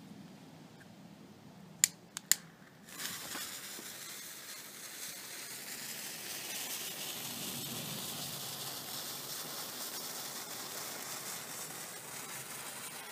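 A lighter clicks three times in quick succession, then a short length of silver sparkler fuse catches about three seconds in and burns with a steady hissing sizzle as it throws sparks.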